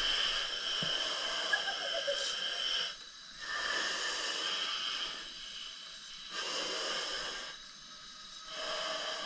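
Hiss of breathing masks on hoses in a diving chamber as several people breathe through them. It comes in uneven spells of a second to a few seconds, with short quieter gaps between breaths.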